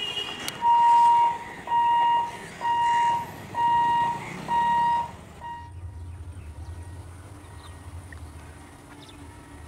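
An electronic warning beeper sounding five even beeps of one steady pitch, about one a second, with a shorter sixth cut off. Afterwards there is a low steady rumble.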